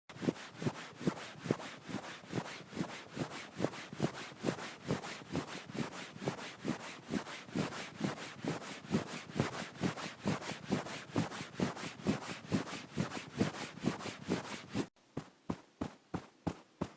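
Sanding with sandpaper in quick, even back-and-forth strokes, about three or four a second, with a steady scratchy rasp. About fifteen seconds in it cuts suddenly to a hammer tapping about three times a second.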